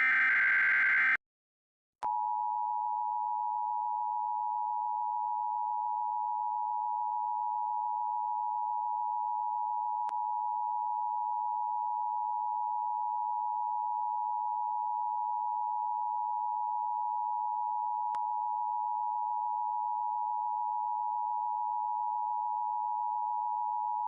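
The end of an Emergency Alert System digital header data burst, which cuts off about a second in. After a brief silence, the EAS attention signal starts about two seconds in: a steady, unbroken electronic alert tone near 900 Hz.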